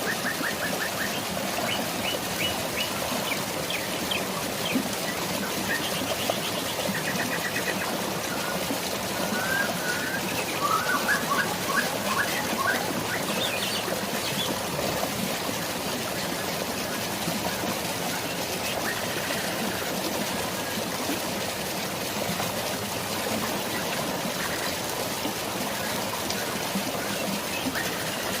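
Steady rush of flowing water with birds chirping and trilling over it, the calls busiest in the first half.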